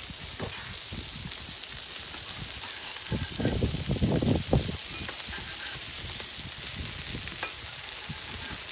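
Sausages, burger patties and chicken sizzling on a stainless-steel barbecue hotplate: a steady hiss. Between about three and four and a half seconds in there is a louder stretch of low rumbling knocks.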